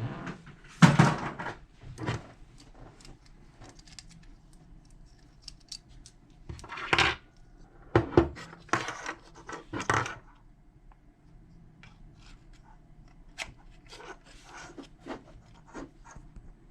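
Small metal lock parts being handled: scattered light clicks, with louder scraping rattles about a second in and again between about seven and ten seconds.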